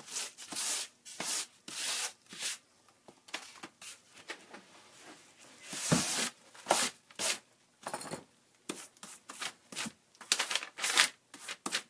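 Irregular dry rubbing and scraping strokes as detached cloth-covered book cover boards are handled and slid over a paper-covered work table, with a louder one about six seconds in.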